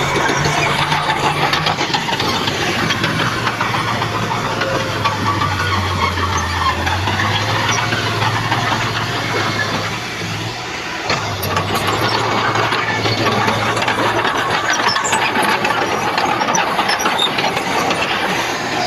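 Bulldozer at work: a diesel engine running under a dense metallic rattle and clank of steel tracks. The engine hum dips briefly about ten seconds in, then carries on.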